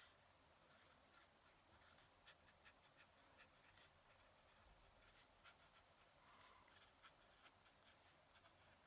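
Fountain pen nib scratching on paper in many short, faint strokes.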